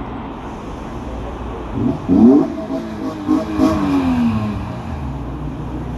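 A car engine accelerating hard past the roadside: the revs climb sharply about two seconds in and climb again a moment later, then the pitch falls away as the car passes, over a steady low traffic hum.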